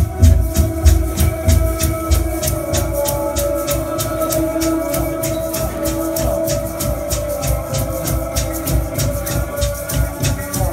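Experimental electronic music played live: a fast, even ticking of clicks at about four a second over low pulsing bass, with sustained held tones in the middle.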